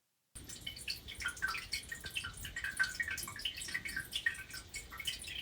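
Water dripping and trickling inside a toilet tank, a quick irregular run of small plinks. It comes from a Korky 528X fill valve that keeps leaking water into the overflow tube, the sign of a worn valve cap and seal.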